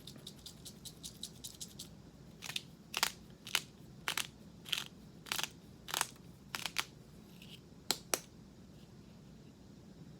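Hand-twisted spice grinder grinding a blend of peppercorns, sea salt and coffee: light quick clicks at first, then from about two seconds in about ten louder crunching twists roughly every half second, stopping around eight seconds in.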